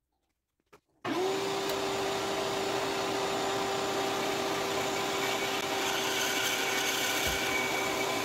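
An electric workshop machine switched on about a second in, with a click just before. It reaches speed almost at once and then runs steadily: a constant hum over an even rushing noise.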